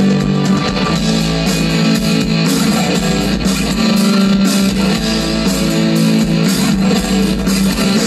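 Italian rock band playing an instrumental passage live, with strummed acoustic guitar, electric guitar, electric bass and keyboards and no vocals.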